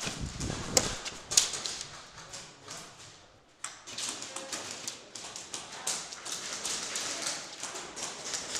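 Irregular sharp cracks and taps of airsoft guns firing and BBs striking walls and partitions, many a second. There is a short lull about three seconds in, then it starts again suddenly.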